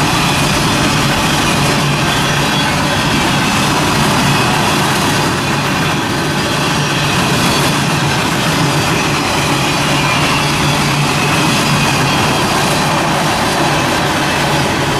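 Union Pacific freight train rolling past, a steady rumble of the cars and wheels on the rails with no let-up.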